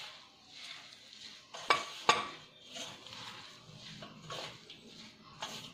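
A hand mixing grated raw potato into dry semolina in a pan: soft, repeated rustling and scraping. About two seconds in there are two sharp metallic clinks against the pan, and these are the loudest sounds.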